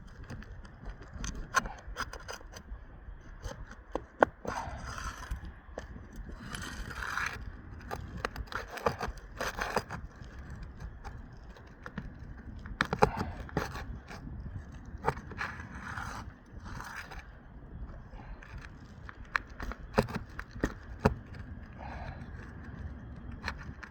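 Tool scraping and prying under 3-tab asphalt shingles to work roofing nails loose, with irregular scrapes and sharp clicks. The nails hold fast and need pressing and pushing to come up.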